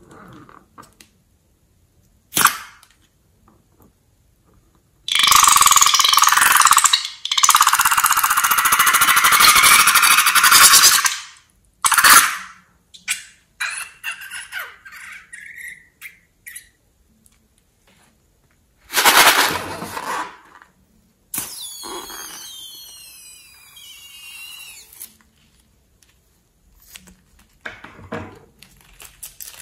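Air rushing out of a toy balloon as a loud hiss lasting several seconds, broken once by a short pause. Later, after another short gust of air, a second balloon lets air out through its stretched neck as a squeal that slides downward in pitch for a few seconds.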